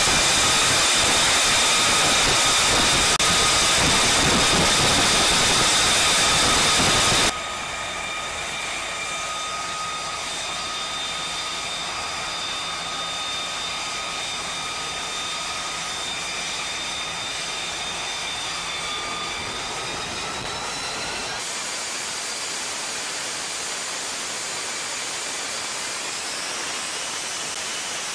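F-35B Lightning II's jet engine running, a steady rushing noise with a high whine over it. The level drops abruptly about seven seconds in and the character changes again about twenty seconds in; the whine rises slightly in pitch just before that change and again near the end.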